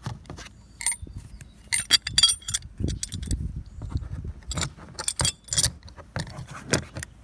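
Small steel anchor plates and a washer clinking together and against a hard surface as they are picked up and handled, in a string of short, irregular metallic clinks.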